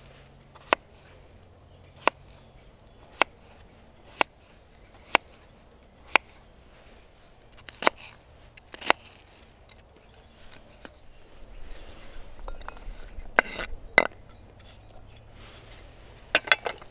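Wood being chopped: sharp, evenly spaced knocks about once a second, then a stretch of rustling with a few more knocks and a quick cluster of strikes near the end.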